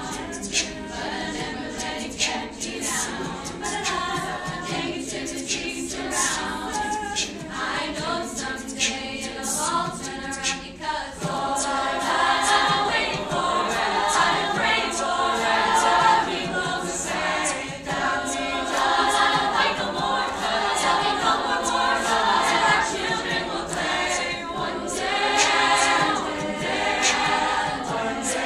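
Mixed choir of girls' and boys' voices singing a cappella in several parts, with a steady beat of short sharp clicks running under the voices.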